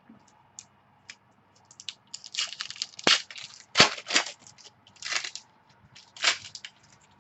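Trading card pack wrappers being torn open and handled, a string of crinkling, rustling strokes that come thick and fast from about two seconds in.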